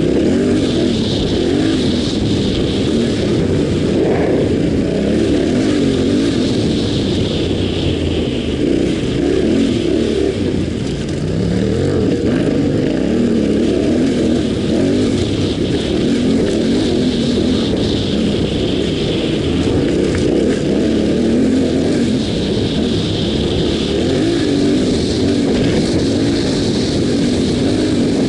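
Yamaha Ténéré 700's parallel-twin engine running as the bike is ridden off-road, its pitch rising and falling with the throttle.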